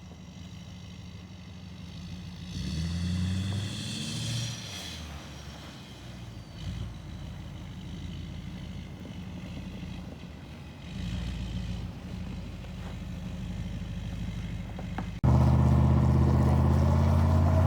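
Pickup truck engine running under load with several rises in revs. About fifteen seconds in, the sound cuts abruptly to a much louder, closer engine.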